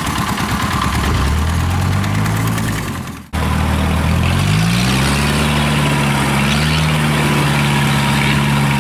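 Engine running and rising in revs to a steady pitch; it cuts off abruptly about three seconds in. Then the engine of a tracked rice-hauling carrier revs up and runs steadily.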